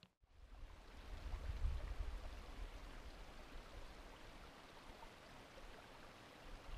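Faint steady rush of running water from a mountain stream, with low gusts of wind on the microphone that swell about a second and a half in.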